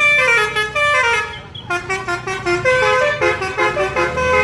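Telolet basuri musical bus horn playing a tune in quick stepped notes, with a short break about one and a half seconds in.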